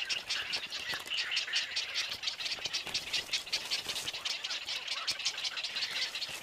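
Purple heron chicks at the nest giving their begging calls at feeding time: a dense, rapid clicking chatter.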